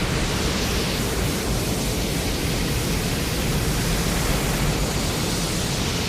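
Film sound effect of a steady, loud rushing noise with a deep rumble underneath, holding level without a break.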